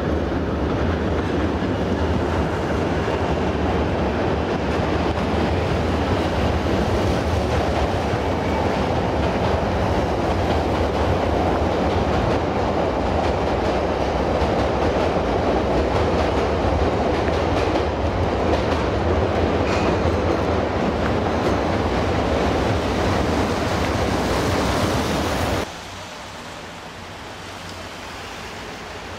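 Chicago 'L' heavy-rail train running on the steel elevated structure: a loud, steady rumble with wheel clatter on the rails. The sound cuts off abruptly a few seconds before the end, leaving quieter background noise.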